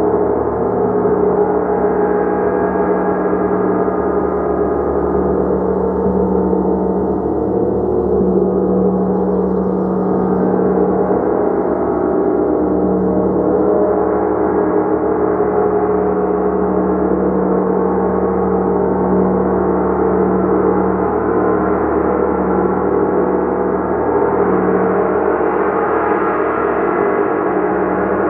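Gong played continuously, a dense sustained wash of many ringing tones over a strong low hum, holding at a steady level with no single strikes standing out.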